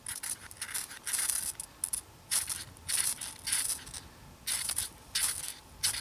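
Knife blade scraped hard down a ferrocerium (ferro) rod in about a dozen quick, rasping strokes with short pauses between them. It is throwing sparks onto a pile of fatwood shavings to light them.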